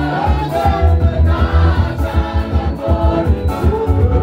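A congregation singing a gospel song together, led by a singer on a microphone, over a heavy, steady bass beat.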